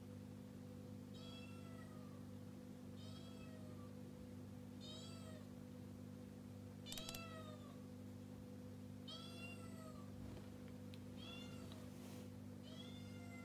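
A cat meowing repeatedly, seven short calls about two seconds apart, each rising and falling in pitch, over a steady low hum.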